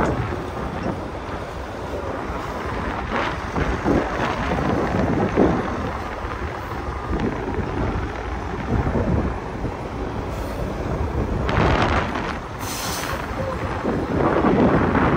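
Heavy vehicle or machinery rumbling: a rough, continuous noise with irregular surges in loudness.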